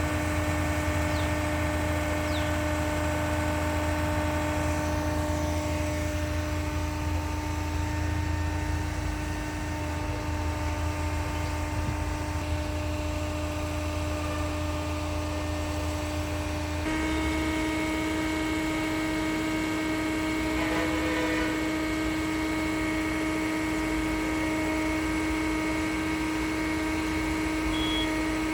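Concrete pump running: a steady machine drone with a constant humming tone, whose pitch steps up slightly about two-thirds of the way through.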